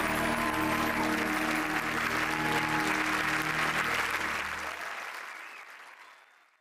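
Studio audience applauding over music, both fading out over the last couple of seconds.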